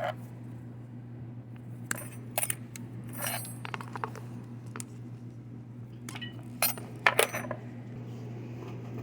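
Scattered light metallic clinks and taps, about a dozen, from small metal parts such as wire terminals and tools being handled, over a steady low electrical hum.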